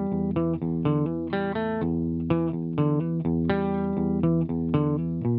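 Electric guitar played through a Happy Valley Analog C-Clamp optical compressor pedal set to high compression with the clean blend off: a quick run of picked notes at a fairly even loudness, with a note left ringing near the end.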